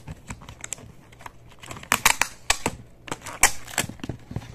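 Cardboard box being opened and handled by hand: a rapid run of sharp clicks, scrapes and crackles from the card flaps and packaging, busiest and loudest in the second half.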